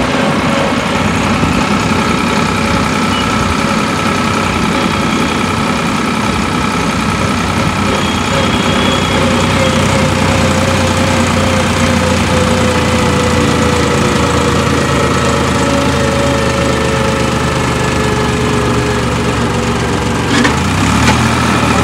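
Farmtrac 60 tractor's three-cylinder diesel engine running steadily while the tractor drives along, its note easing slowly lower through the middle. Near the end the engine note briefly changes, dipping and rising.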